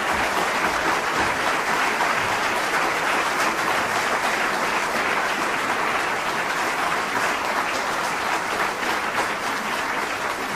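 Audience applauding, a dense, steady clatter of many hands clapping that cuts off abruptly at the end.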